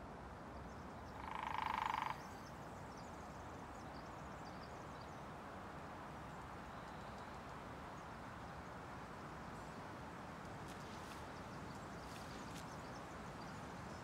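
Soft, steady night-forest ambience hiss, with a single frog call about a second in, held for just under a second at one pitch. A few faint light ticks come near the end.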